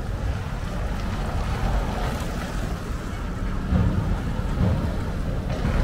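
Cars and pickup trucks driving off a ferry one after another, engines and tyres passing close, over a low wind rumble on the microphone. It gets a little louder with a few low thumps as a car passes about four seconds in.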